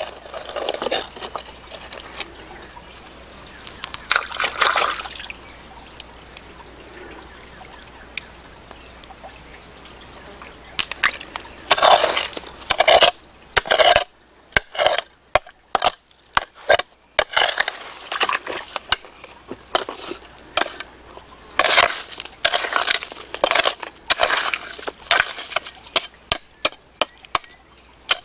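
Small hand hoe chopping and scraping into damp soil and stones: irregular clusters of sharp knocks and scrapes, quieter for a few seconds early on, then in dense runs through the second half.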